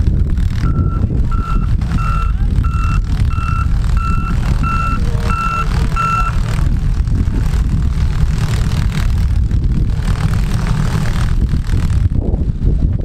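A vehicle's reversing alarm beeps about nine times, about one and a half beeps a second, and stops after about six seconds. Under it runs a loud, steady low rumble of engines.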